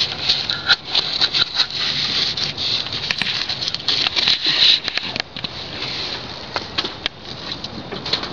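Crinkling and rustling of a plastic package being handled and opened, with many small irregular clicks.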